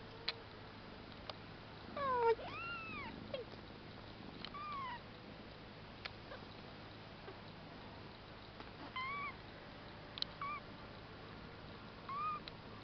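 Very young kittens mewing: about six short, high, thin mews spread through, the loudest pair about two seconds in, with a few faint clicks between them.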